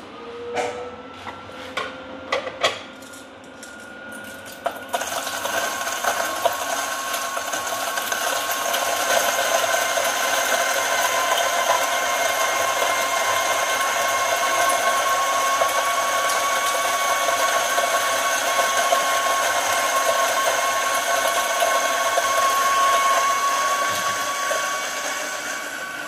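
Timemore Sculptor 078S electric flat-burr coffee grinder, set to about 800 RPM at a fine espresso setting: the motor spins up with a rising whine, a few clicks follow, and from about five seconds in coffee beans are slow-fed through the burrs with a steady, louder grinding whir that eases off near the end as the last beans pass through.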